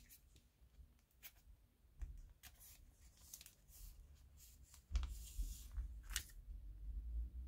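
Glossy photo prints being handled and one slid out of a grey paper sleeve: faint scattered rustles and slides, with a louder rustle and a dull bump about five seconds in and a crisp swish just after six seconds.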